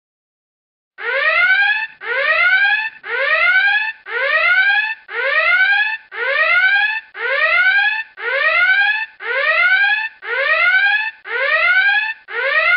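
Synthesized sci-fi alarm sound effect: a rising electronic sweep repeated about once a second, about a dozen times, starting about a second in.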